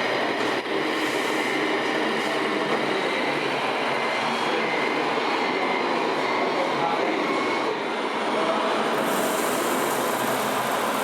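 Remote-control model trucks running, a steady mechanical din that holds level throughout and grows brighter and hissier about nine seconds in.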